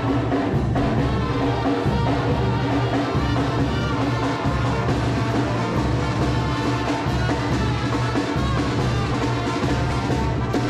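Brass band music with drums and a pulsing bass line.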